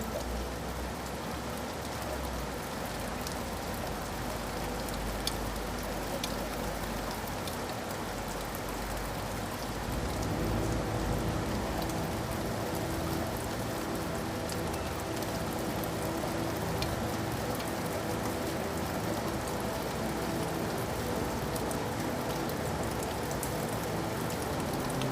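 Steady rain falling, an even hiss with scattered individual drops ticking. About ten seconds in it grows slightly louder and fuller in its lower range.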